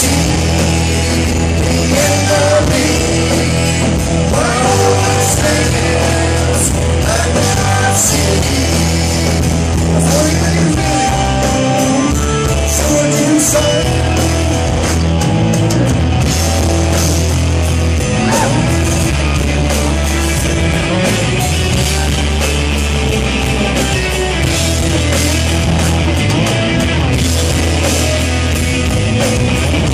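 Live rock band playing loudly with electric guitars, bass guitar and drums, and a man singing.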